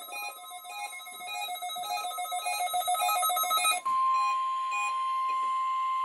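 Weather alert radio beeping its alert: short electronic beeps at two alternating pitches, repeating quickly. About four seconds in, the NOAA Weather Radio warning alarm tone takes over, a single steady high tone that marks the weekly test transmission.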